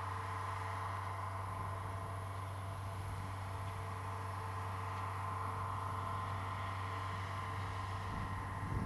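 Irrigation pump truck's engine running steadily, a constant low hum with a faint steady whine, under wind rustling through sugarcane leaves. A low rumble swells near the end.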